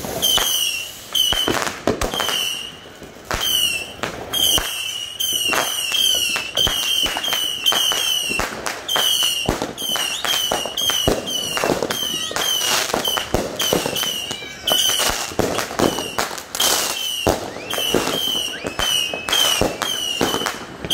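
Fireworks going off: a rapid string of sharp bangs and crackles from fountains and aerial shells, with short high whistles that fall in pitch, about two a second.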